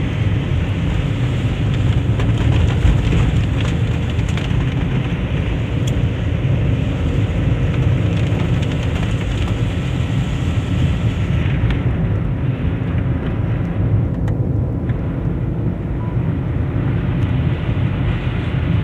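Car cabin noise while driving on a wet road: a steady low rumble of engine and tyres, with a hiss over it that drops away a little past halfway through.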